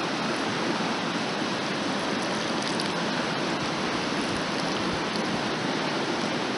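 A creek running steadily: an even, unbroken rush of flowing water.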